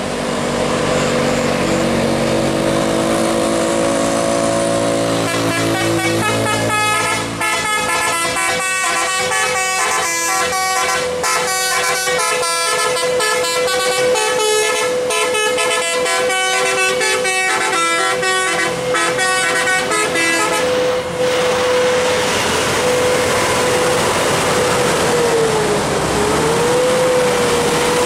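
Tour bus's musical 'telolet' air horn playing a quick tune of many short notes, starting about five seconds in and cutting off abruptly about fifteen seconds later. The bus's engine runs underneath before and after the tune.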